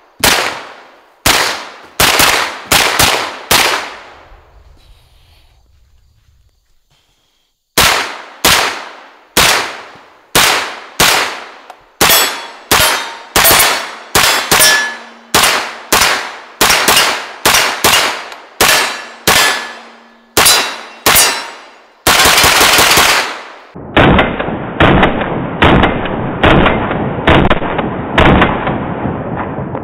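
Palmetto State Armory AK-V 9mm pistol-caliber carbine firing single shots in strings, about two a second, with a pause of a few seconds after the first half-dozen. Hits ring on steel targets. Near the end comes an unbroken loud stretch, then another string of shots.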